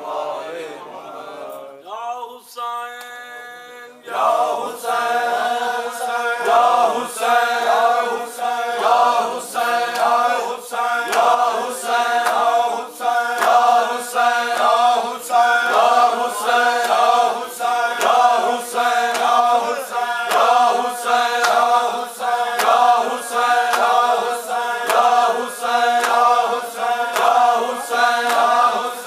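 Group of men chanting a nohah, a Shia mourning lament, in unison, loud from about four seconds in. Under it runs a steady rhythm of sharp slaps, roughly two a second: matam, the ritual beating of the chest in time with the lament.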